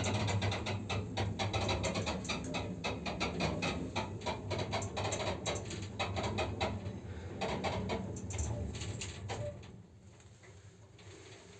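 2010 Shcherbinka (ShchLZ) passenger elevator car travelling, a steady low hum with many irregular creaks and rattles, loud for a lift only 12 years old. The running noise drops to a faint hum about three-quarters of the way through.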